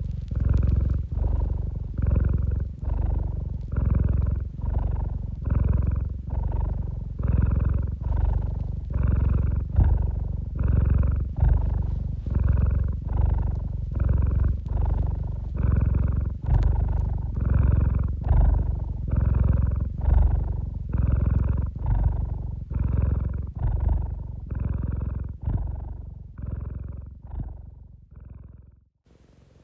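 Domestic tabby cat purring close up, loud and rumbling, in an even rhythm of about one and a half pulses a second as it breathes in and out. The purr weakens near the end and stops.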